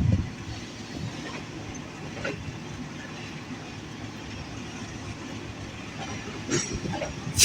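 Passenger train rolling on the track with a steady low rumble and a few wheel clacks over rail joints.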